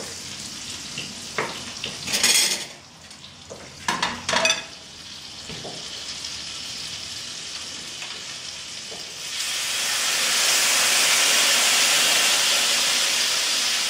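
A fork with a lemon half stirs and scrapes through hot caramel in a pan with a few short sizzling strokes. About nine seconds in, orange juice pressed into the hot caramel sets off a loud, steady sizzle with steam.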